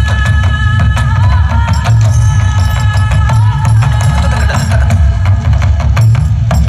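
Loud music with busy drumming and percussion over a heavy bass, and sustained high tones above.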